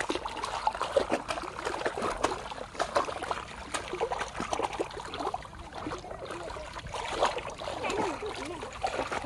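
Shallow muddy pond water splashing and trickling in many small, irregular splashes as hands grope inside a bamboo plunge-basket fish trap for the fish caught under it.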